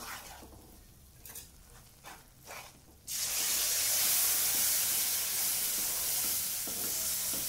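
A wooden spatula scrapes and stirs ghee-roasted moong dal in a kadhai in a few short strokes. About three seconds in, creamy milk is poured onto the hot dal and it breaks into a sudden loud, steady sizzle that goes on as the milk is stirred in.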